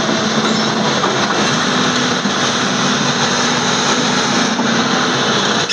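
An engine running steadily, a dense mechanical noise with a constant low hum throughout.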